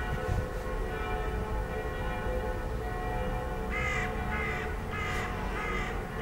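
A crow cawing four times in quick succession, about half a second apart, starting about two-thirds of the way in. Steady distant tones carry on underneath.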